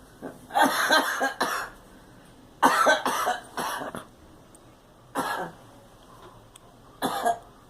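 A girl coughing in fits: a quick run of several coughs about half a second in, another run around three seconds in, then a short cough near five seconds and another near seven.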